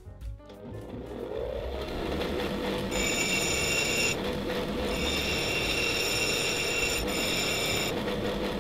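Bench grinder running with a steady hum that rises to speed in the first second or so. A steel rod is pressed against the grinding wheel twice, a high ringing grind about three seconds in and again from about five to eight seconds.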